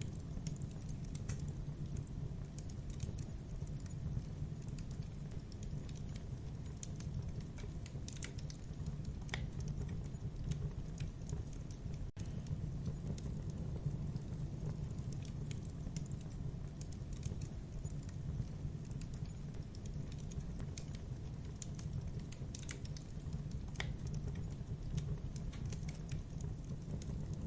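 Campfire burning: scattered sharp crackles and pops of the burning wood over a steady low sound of the fire.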